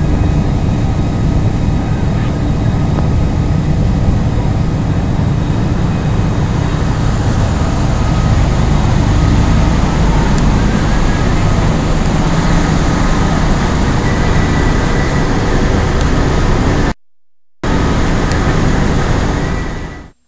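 Motorboat engine running steadily under way, with water rushing in the wake and wind on the microphone. The sound drops out for about half a second near the end, then fades away.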